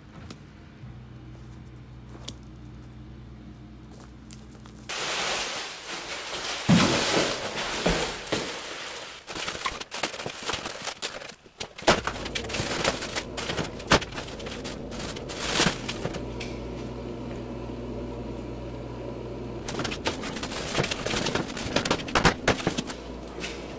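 Rustling and knocking of a black plastic garbage bag being handled, with sharp clicks and clunks, then a refrigerator's freezer door being opened.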